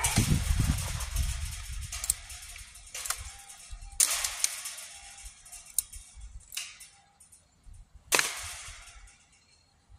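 Sharp metal knocks and rattles at irregular intervals, the loudest about four and eight seconds in, each ringing off for about a second, as hardware is handled against a chain-link fence post. A rustling rumble fills the first second or so.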